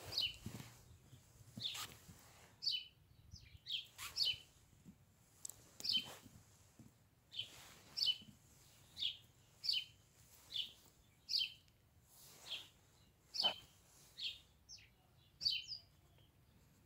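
Short, high, bird-like chirps, each falling slightly in pitch, repeated roughly once a second, with a few faint knocks among them. The chirping stops shortly before the end.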